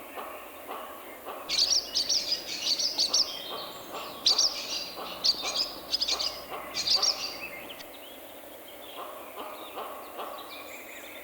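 Swallows twittering: rapid bursts of high chirps and warbles from about a second and a half in until about eight seconds. Lower, evenly repeated bird notes run underneath throughout.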